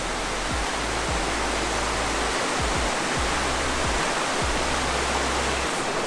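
Evan Thomas Creek waterfall rushing steadily down its rock cascades, with a low drum beat from background music underneath.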